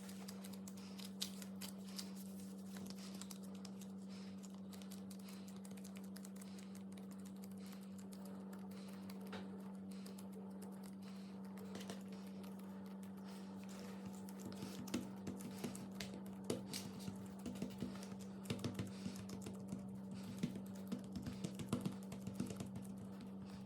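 Soft slime being pressed and worked by hand, giving faint sticky clicks and pops that grow more frequent and louder about halfway through, over a steady low electrical hum.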